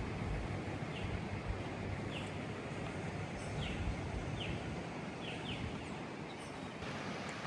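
Outdoor ambience: a steady low rumble of background noise with about half a dozen short, falling bird chirps scattered through it.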